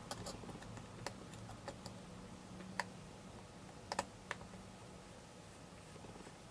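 Faint, irregular light clicks and taps of a small screwdriver and the small parts of a MacBook Pro trackpad being handled, with a sharper click about three seconds in and a quick pair near four seconds.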